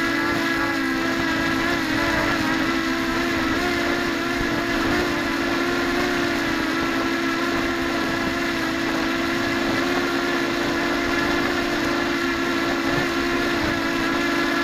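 Mini quadcopter's electric motors and propellers whining steadily in flight, the pitch shifting a little as the throttle changes.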